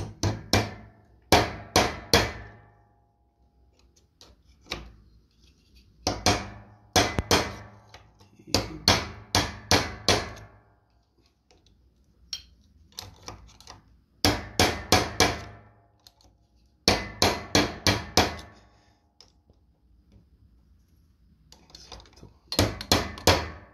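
Hand hammer striking metal in about six bursts of three to six quick blows with short pauses between, typical of peening over a small rivet on a VW Fusca quarter-window latch.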